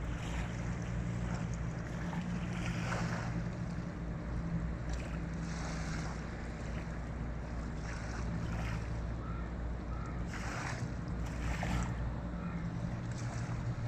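Steady low drone of a boat's engine, with water wash and wind noise over it.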